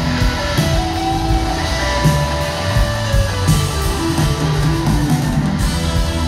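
Live blues-rock band playing loud, with electric guitar to the fore over bass and drums, heard from the audience in a large venue.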